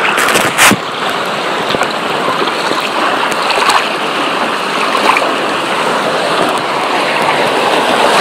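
Churning, rushing water close to the microphone, steady throughout, with one brief loud splash about half a second in.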